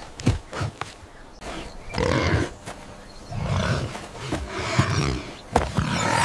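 Animal growls and roars in repeated bursts, with a few sharp knocks between them.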